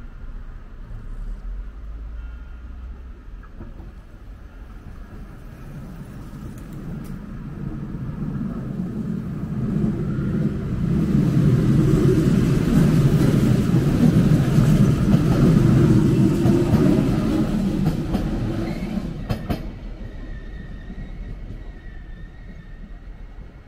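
A train passing over a railway level crossing. The rumble builds over several seconds, stays loud for about seven seconds, then fades away, with a few sharp clicks of wheels near the end of the pass.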